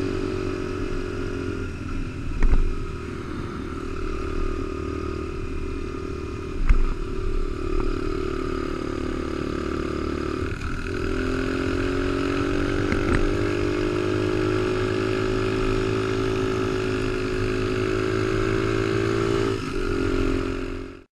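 Honda XR100 mini bike's air-cooled single-cylinder four-stroke engine running at a steady cruise, heard from on board. The engine note dips briefly three times, where the throttle is eased. Two sharp thumps come about 2.5 and 6.5 seconds in, and the sound cuts off just before the end.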